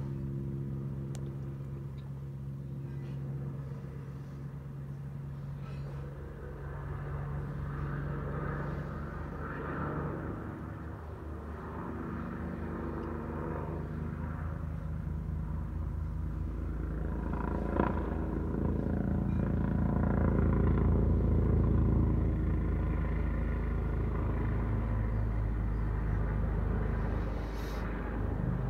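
Police helicopter circling overhead: a steady low rotor drone with a fast, even blade beat, growing louder a little past halfway as it comes nearer, then easing slightly. One short sharp click a little past halfway.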